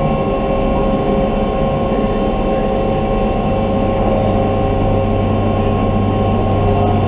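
A boat's engine running steadily, heard aboard, giving an even drone with a low hum and several constant higher tones.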